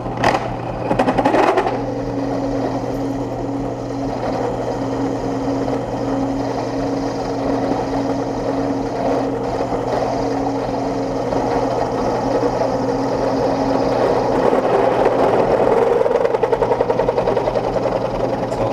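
Drill press running with a solid carbide bit cutting into a hardened tool-steel hammer head: a steady motor hum and the grinding of the cut, with a steady whine through the middle. The cutting grows louder and turns into a fast chatter near the end.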